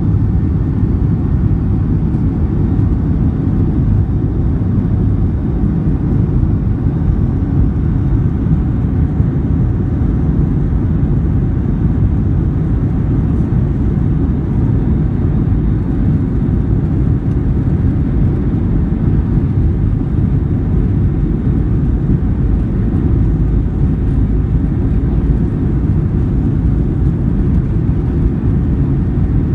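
Boeing 737-800 heard from inside the passenger cabin at takeoff and initial climb: the CFM56 jet engines at high thrust and the airflow make a steady, loud, low rumble that holds even throughout.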